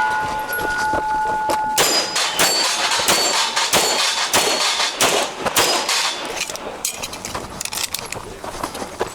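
Rapid pistol shots with steel targets clanging as they are hit. One plate rings on a steady tone for about the first two seconds before the string of shots and hits continues.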